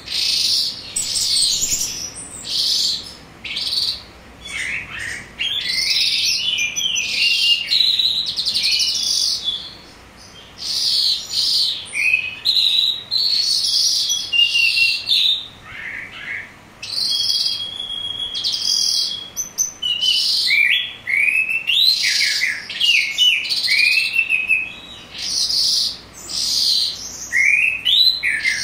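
Caged calandra lark singing a long, varied song of rapid chirps, trills and sweeping notes in quick phrases with short pauses, including one held whistle near the middle.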